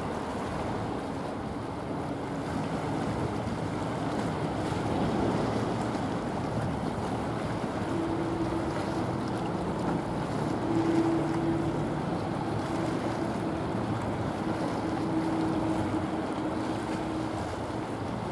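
A large general cargo ship passing close by, its low drone mixed with the rush of water and wind on the microphone. A faint steady hum comes and goes from about eight seconds in.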